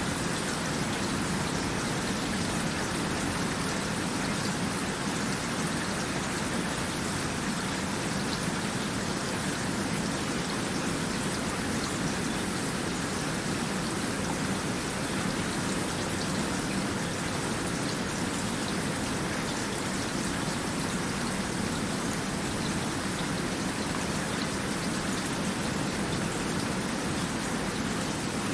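Steady rain falling, an even unbroken hiss of drops on a surface.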